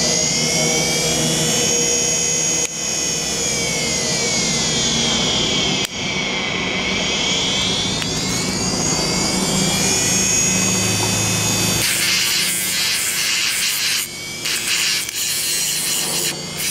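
Opened 7200 rpm hard drive, run from a PC power supply and used as a sandpaper grinder, spinning with a steady high whine whose pitch slowly dips and rises. About twelve seconds in, a rough scraping starts in stop-and-start strokes as something is pressed against the spinning sandpaper.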